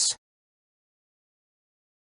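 Dead silence, just after the last syllable of a synthesized narrating voice cuts off at the very start.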